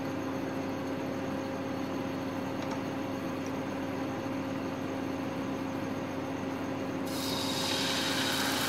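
A steady electric hum with a faint hiss. About seven seconds in, a high sizzle starts suddenly as uttapam batter is ladled onto the hot oiled nonstick pan.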